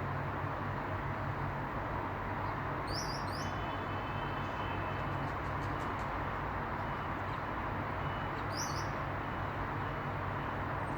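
Small birds giving a few short, high chirps: two in quick succession, then one more several seconds later, over a steady rushing noise with a low hum.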